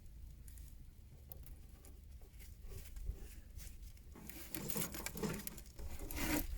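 Old engine oil from a Bobcat S130 skid steer draining out of the drain-plug hole in a thin stream and pattering into a catch container. The stream runs slowly because the oil filler cap is still closed. The pattering grows louder and more irregular from about four seconds in.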